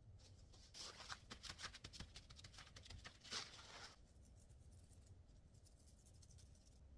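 Salt sprinkled by hand over tofu slices on a bamboo cutting board, the grains landing as a quick run of fine, faint ticks for about three seconds.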